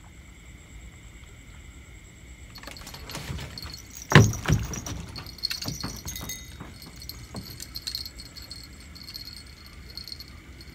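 Light metallic jingling and clattering, with one loud thump about four seconds in.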